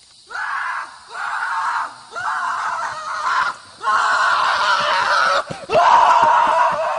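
A person screaming over and over in long, loud shrieks with short breaks between, about six in all.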